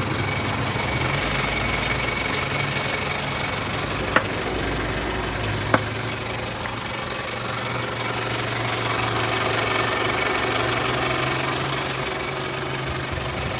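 A 1998 Toyota Camry's four-cylinder engine idling steadily, with short hisses of cleaner being sprayed at intervals around the rubber intake hose. The spray is a test for a vacuum leak: the hose is cracked and the engine runs lean (code P0171). Two sharp clicks come a little before and after the middle.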